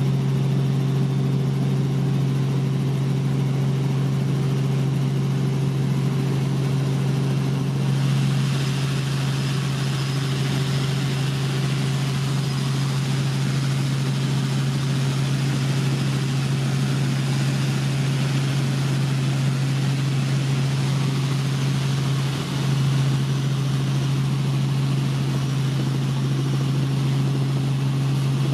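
Robinson R44 helicopter in flight, heard from aboard: a steady engine-and-rotor drone with a constant low hum, joined by a louder hiss about eight seconds in.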